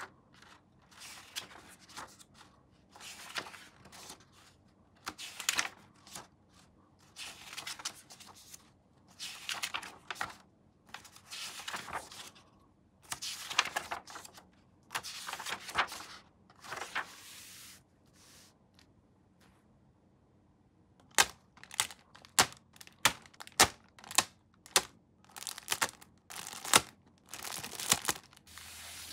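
Hand work on plastic scale-model kit parts: a series of short rasping strokes about every second and a half. After a short pause comes a run of a dozen or so sharp clicks.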